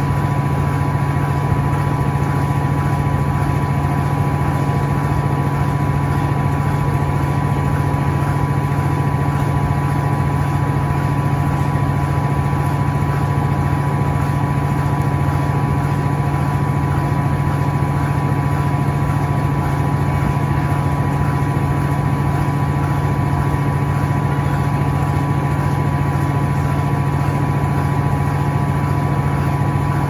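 Electrolux LTA15 Turbo Acqua Jet top-loading washer with a direct-drive motor, spinning its basket at high speed in the final 1000 RPM spin. It makes a steady, unchanging hum: a strong low drone with a higher steady whine on top.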